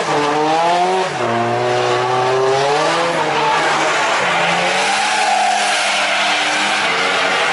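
Drift car on the course, its engine revving up and down with a sharp drop in pitch about a second in, and tires squealing as it slides.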